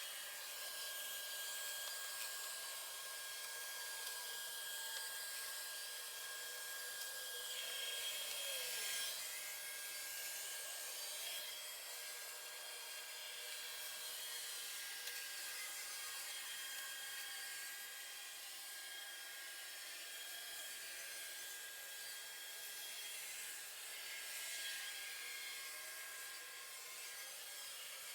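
Robot vacuum cleaner running, a steady high whine over an even hiss.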